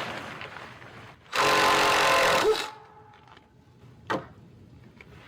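Cordless power driver running for about a second and a half, then winding down, most likely backing a screw out of the wall formwork. A single sharp click follows.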